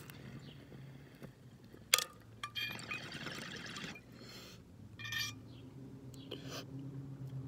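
Water bubbling in a glass beaker bong as smoke is drawn through it, in several spells, with two sharp clicks, one at the start and one about two seconds in.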